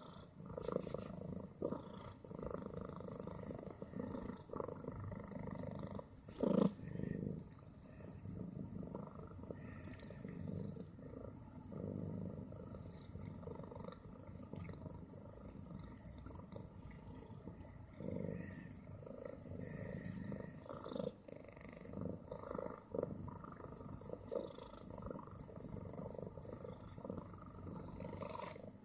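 Fat domestic cat purring loudly, the purr swelling and fading about once a second with its breaths. There is a short, louder sound about six and a half seconds in.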